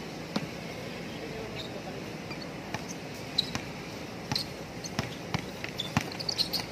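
Basketball bouncing on an outdoor hard court during a pickup game: irregular sharp thuds, sparse at first and more frequent in the second half, with a few short high squeaks near the end.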